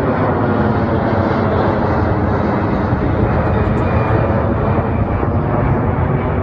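Airbus A330's twin jet engines at takeoff thrust: a loud, steady jet rumble, heaviest in the low end.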